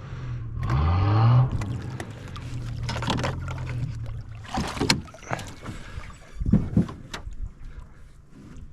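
A small boat motor running, its hum rising in pitch about a second in and dying away around four seconds in, followed by scattered knocks and rattles.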